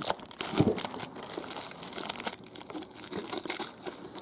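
Crinkling and scattered light clicks as 700R4 transmission clutch-pack steels and friction discs are handled and sorted.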